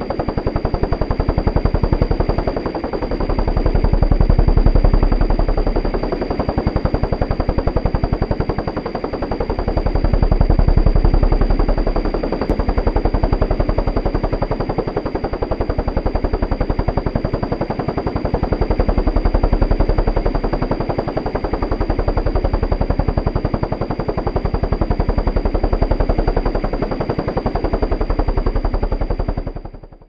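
Helicopter rotor blades chopping in a fast, even beat, with a thin steady high whine above it. The level swells and eases slowly, and the sound fades out at the very end.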